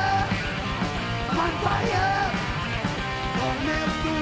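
Heavy metal band playing live: distorted electric guitar with bending lines over bass and drums, heard from within the crowd of a small club.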